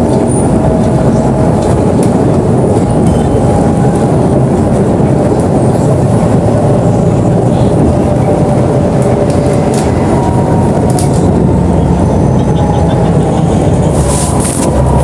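BonLuck DD6181S32 articulated city bus under way: a steady, loud engine and running-gear rumble with a faint steady whine above it, and a few rattles near the end.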